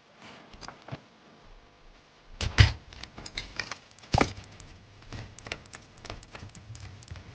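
Hand work on a bicycle: scattered clicks and knocks of tools and bike parts, with two louder knocks about two and a half and four seconds in.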